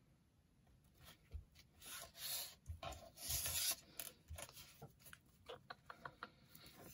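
Paper card frames being slid and handled on a plastic cutting mat: faint rubbing swishes about two and three seconds in, then a run of small taps and clicks as things are picked up and set down.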